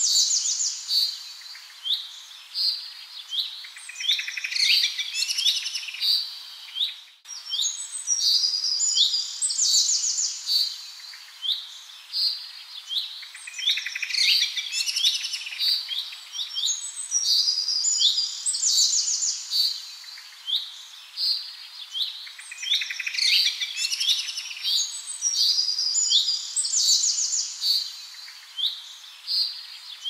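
Small songbirds singing in a continuous chorus of high chirps and trills, with a brief break about seven seconds in.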